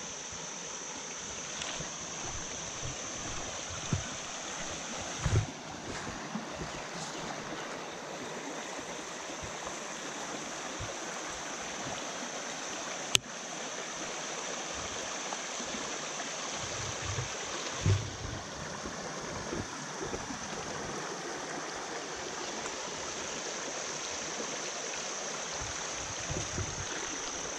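Shallow, clear creek water running over a stony riffle: a steady rush of flowing water. A few low thumps come through, and one sharp click about halfway through.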